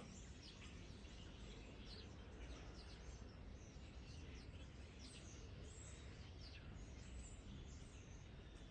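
Near silence: low room tone with faint, scattered short chirps of distant birds.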